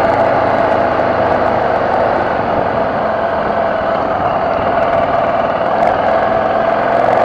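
BMW F650GS motorcycle engine running steadily on an off-road climb; its note sags a little in the middle and picks up again near the end.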